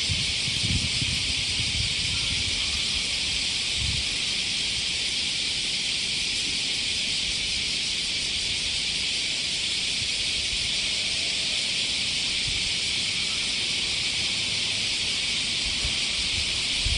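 Steady high-pitched drone of a cicada chorus, even in level throughout, with occasional low wind rumble on the microphone.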